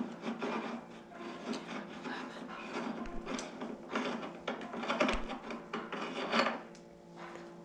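Small metal parts of a hand-made roll crimper being handled and taken apart: irregular scraping and rubbing with light clicks.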